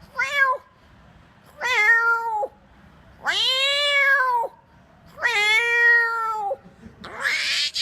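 A man imitating a cat with his voice: four drawn-out meows, each longer than the one before, then a raspier call near the end.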